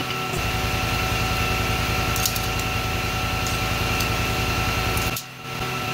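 Steady mechanical hum with a heavy low rumble that drops out about five seconds in, and a few light clinks as steel lifting chains and hooks are unhooked from a battery cell.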